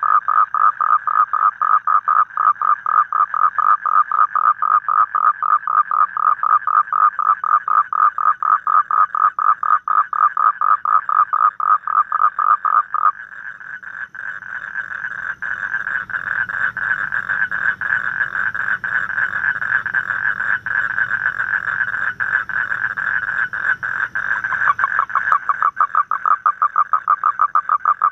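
Asian common toad calling: a loud, rapid pulsed trill of croaks. About halfway through it smooths into one continuous buzzing trill for some twelve seconds, then breaks back into distinct pulses near the end.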